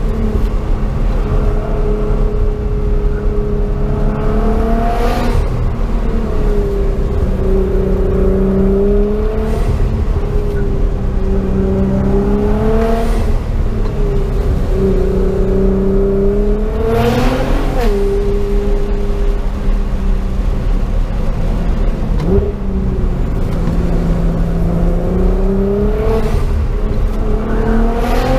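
Nissan GT-R's twin-turbo V6 heard from inside the cabin during spirited driving through tight bends: the engine note climbs under acceleration and drops sharply at gear changes several times, over a constant low road rumble.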